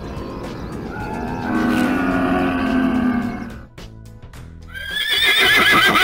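A camel's low pitched call for about two seconds, then after a short pause a horse whinnying, a loud high call wavering up and down in pitch, starting near the end.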